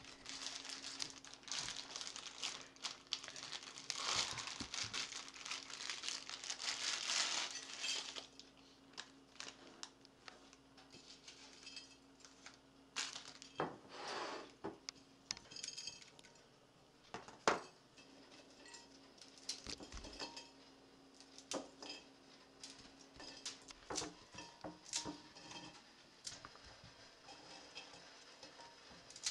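Plastic wrapper of an instant noodle packet crinkling as it is torn open and handled for about the first eight seconds, followed by scattered light clicks and knocks as the dry noodle block is handled in a ceramic bowl.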